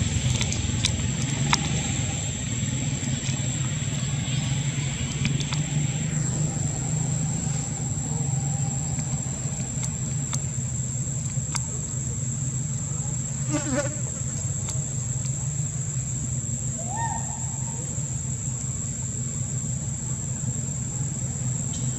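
A steady, high-pitched insect drone over a low, steady rumble, with a few faint clicks and a brief short call about three-quarters of the way through.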